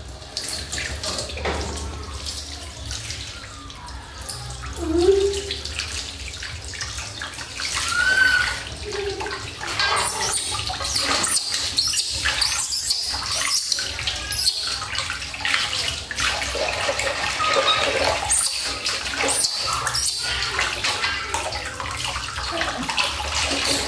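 Water from a shower hose running and splashing into a steel basin while a baby monkey is washed under it by hand, the splashing growing louder about ten seconds in. A couple of short cries from the baby monkey break through about five and eight seconds in.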